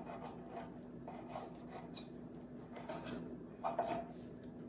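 Knife cutting raw chicken against a wooden cutting board: faint, irregular scraping strokes, with a couple of slightly louder scrapes about three seconds in.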